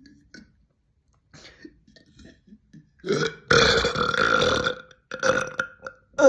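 A young woman burping: after a few quiet seconds comes one long, loud burp lasting well over a second, followed shortly by a second, shorter burp.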